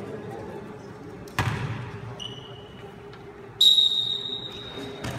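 A basketball bounces once on the gym floor, echoing through the hall, followed by a short sneaker squeak and then a long, steady referee's whistle blast, the loudest sound here.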